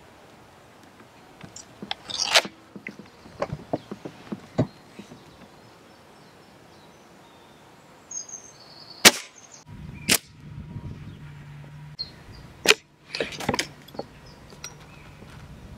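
A .22 BSA Lightning SE break-barrel spring-piston air rifle is handled with a run of metallic clicks and clunks as it is cocked, loaded and snapped shut. It is then fired once, a sharp crack about nine seconds in and the loudest sound here, with another sharp click about a second later. Near the end come more clicks as the barrel is broken open again to reload.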